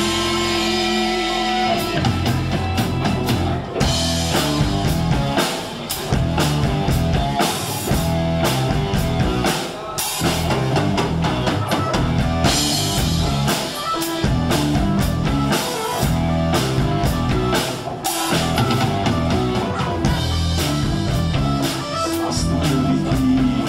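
Rock music soundtrack: electric guitar and drum kit playing an instrumental passage with a steady beat.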